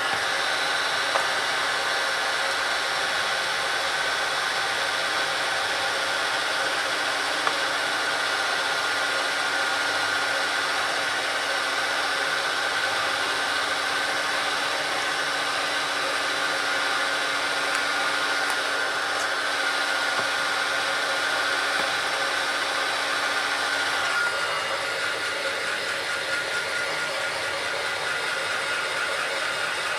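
Hot-air heat gun blowing steadily, with a faint fixed whine over the rush of air, used with light heat to soften the adhesive on a phone's plastic back panel. Its tone shifts slightly near the end.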